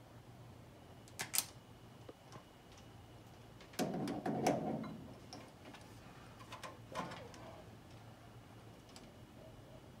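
Hand wire tool and wires being worked while a switch pigtail is wired in: a couple of sharp clicks about a second in, a longer scraping rustle around four seconds, and a few more clicks around seven seconds, over a faint steady hum.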